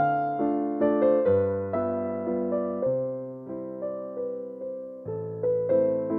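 Background piano music: a slow, gentle piece of chords and single notes, each struck and fading, with bass notes beneath.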